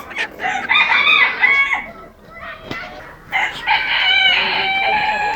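Rooster crowing: two long crows, the second starting about three and a half seconds in.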